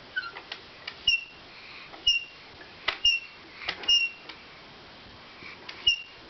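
Plastic toy car being handled: clicks and knocks, with short high chirps or beeps about once a second.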